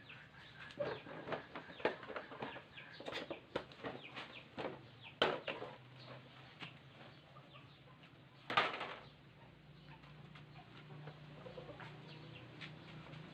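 Chickens clucking, mixed with scattered sharp clicks and two louder knocks about five and eight and a half seconds in.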